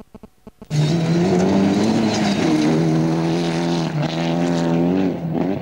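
Rally car engine at full throttle on a loose dirt course, cutting in suddenly after a few clicks. The revs climb, dip with a gear change about two seconds in, and climb again with another change about four seconds in, over a hiss of tyres and flung gravel.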